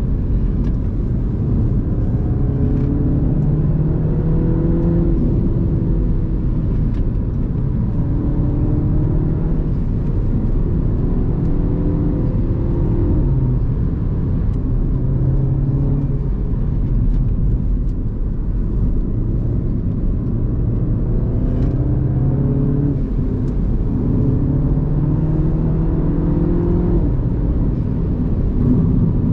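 Mini Cooper's turbocharged four-cylinder engine pulling hard through the gears. Its note rises over a few seconds, then drops at each shift or lift, again and again, over steady road and tyre noise.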